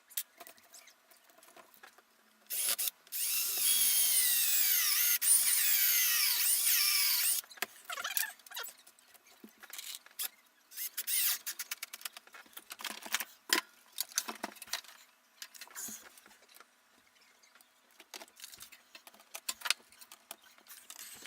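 Power drill running for about five seconds, its whine falling in pitch as it works, then scattered clicks and knocks of parts and tools being handled.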